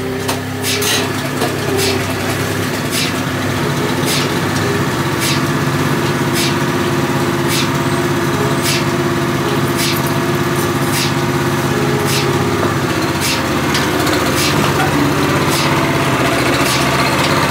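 Small gasoline engine on a bale cart running steadily, with a sharp click repeating about every 0.7 seconds.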